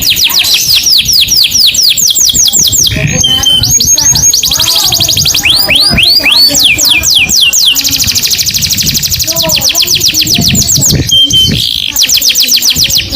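Canary singing: fast trills of repeated downward-sweeping notes in a string of phrases, with a brief held whistle twice.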